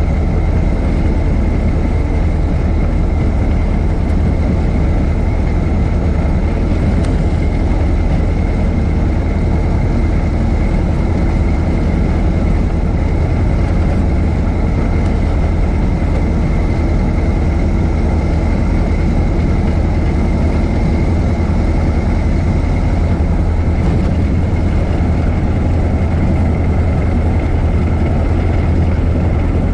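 A 1926 Ford Model T's four-cylinder flathead engine running steadily as the car is driven, holding an even pace with no revving or gear changes.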